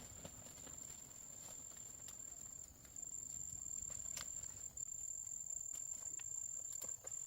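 A steady high-pitched whine on one tone, breaking off briefly twice, with faint scattered clicks and taps underneath.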